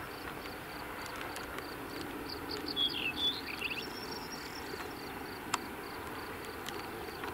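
Crickets chirping in a steady, even pulse, with a short warbling bird phrase about two and a half seconds in and one sharp click a little past the middle.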